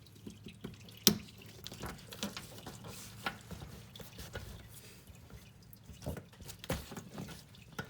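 Engine oil dripping from a Honda Civic Si into a drain pan, with scattered light ticks and one sharp click about a second in.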